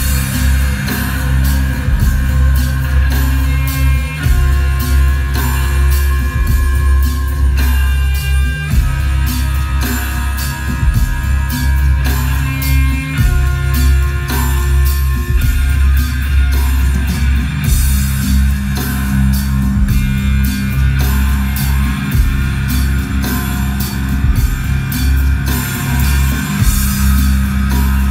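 Rock music with electric guitar and a heavy, continuous bass line, played loud through a home-theater system whose low end comes from an HSU ULS-15 Mk2 sealed subwoofer with a 15-inch driver.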